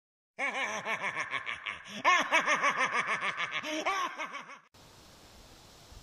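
A person laughing in rapid, repeated ha-ha pulses, in about three runs, stopping about three-quarters of the way through; after that only a faint steady hiss.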